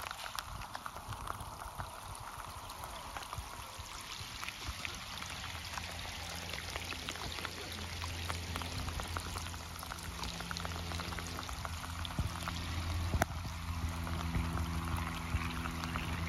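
Rain falling on a lake's surface: a dense hiss of drops with scattered sharper drips. From about six seconds in, a low steady hum joins underneath and grows a little louder.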